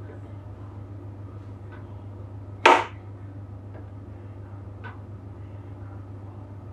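Kitchen room tone with a steady low hum and a few faint light ticks as a small knife scores a ball of bread dough on a metal baking tray, broken about two and a half seconds in by one short, sharp noise that is much the loudest sound.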